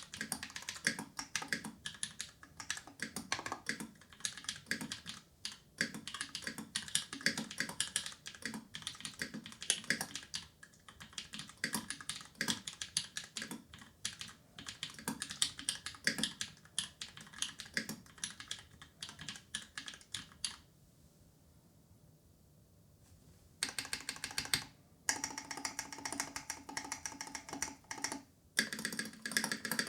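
Typing on a Pizza65 mechanical keyboard with an aluminium plate and tactile Glorious Panda switches lubed with Krytox 205g0: quick runs of keystrokes. About two-thirds of the way through the keystrokes stop for about three seconds, then the typing resumes.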